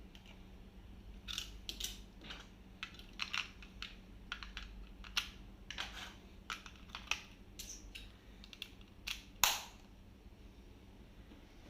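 Buttons on a handheld air-conditioner remote control pressed over and over, a run of irregular short plastic clicks with the loudest one near the end. A faint steady hum sits underneath.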